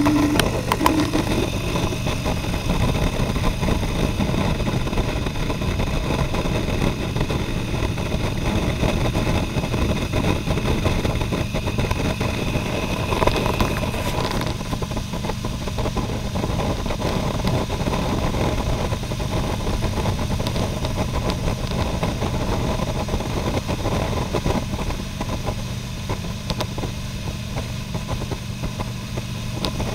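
Honda Gold Wing motorcycle cruising at steady highway speed: a continuous engine hum under wind and road noise, the rush easing a little about halfway through.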